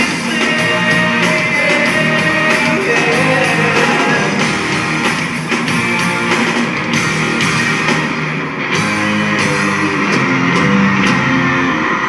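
Rock band music with electric guitar and drums, with little or no singing.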